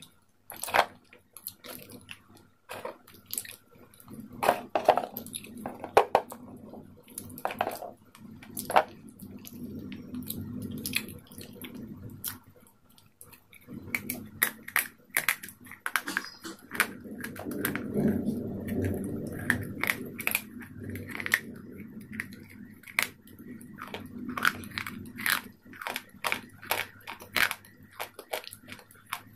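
White chalk sticks snapped and bitten off in sharp, crisp cracks, then crunched and chewed close to the microphone, with grinding chewing noise between the cracks.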